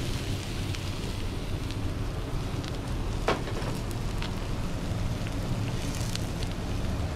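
Food sizzling on a flat-top griddle: a steady frying hiss with scattered small pops and crackles, and one sharper pop about three seconds in.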